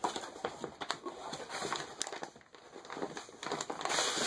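Corrugated cardboard shipping box being opened by hand: flaps scraping and rustling, with irregular taps and knocks. The rustling grows denser near the end.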